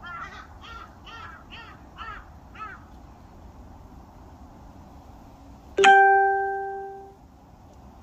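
A crow cawing in a quick run of about two harsh caws a second, stopping after roughly two and a half seconds. Near the six-second mark a single loud musical note starts suddenly and rings out, fading over about a second and a half.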